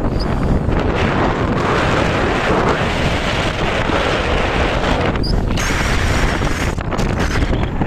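Loud wind buffeting and rushing over the microphone of a moving car, a dense steady roar heaviest in the low end.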